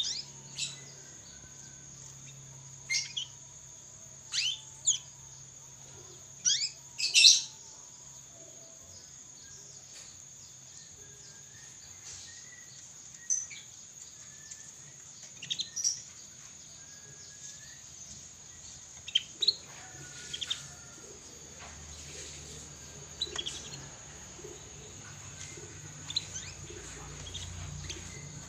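Young canary giving short, scattered chirps and call notes, the halting practice of a bird still learning its song. There are about a dozen brief calls with long gaps between them, the loudest a cluster about seven seconds in, over a steady high hiss.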